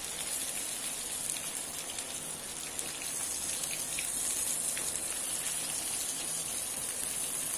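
Breadcrumb-coated Bombay duck (bombil) fillets frying in hot oil in a pan on full flame: a steady sizzle with faint crackles.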